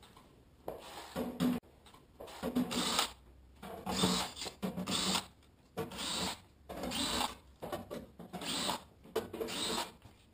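DeWalt drill with a 5/16 socket on a hex adapter running in short bursts, about one a second, backing the screws out of a welder's sheet-metal case.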